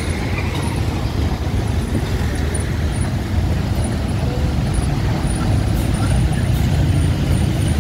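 Steady road traffic: car and motorbike engines running and passing close by.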